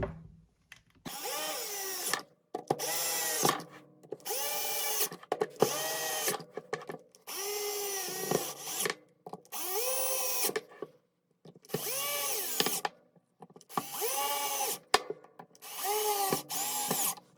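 Electric drill motor running in about ten short bursts of roughly a second each, each one speeding up and then winding down.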